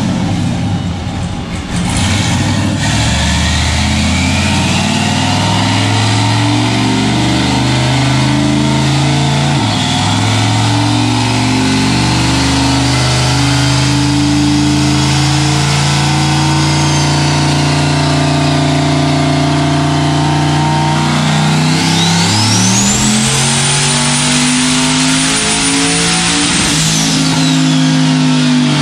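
Turbocharged Corvette V8 running on a chassis dyno with a faint turbo whistle. About 22 seconds in the revs rise and the turbo whine climbs to a very high pitch, holds for about four seconds, then falls away as the throttle comes off.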